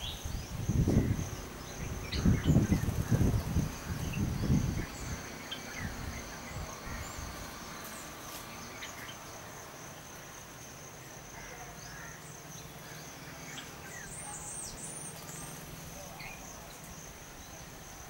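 A steady high-pitched insect drone with scattered faint bird chirps, and a short run of high chirps about three-quarters of the way through. A few muffled low bursts of sound come in the first five seconds.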